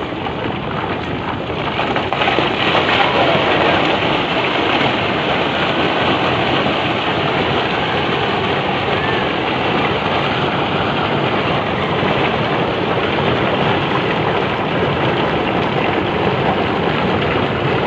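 Flash-flood debris flow of mud and stones pouring down a hillside channel, making a dense, steady rushing noise that grows louder about two seconds in.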